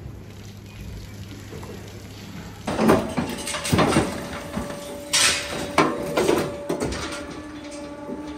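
Metal clanking and banging from a WOPA hoof-trimming chute holding a cow: a low steady hum at first, then from about three seconds in a run of loud knocks and clanks roughly every half second to a second, over a steady machine hum.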